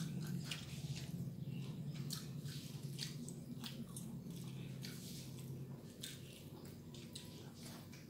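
Close-up eating noises of children eating rice and side dishes by hand: wet chewing, lip smacking and soft squishes, coming as irregular short clicks. A low steady hum lies underneath and drops away about six seconds in.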